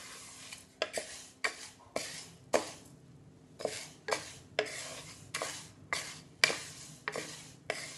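Wooden spatula stirring dry granulated sugar in a kadhai: a gritty scrape about twice a second, with a short pause near the middle. The sugar is still in granules, being stirred continuously over low heat until it melts.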